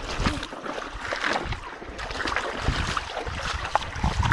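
Shallow stream water splashing and sloshing irregularly as people wade through it and work it with their hands, with low thumps of wind on the microphone.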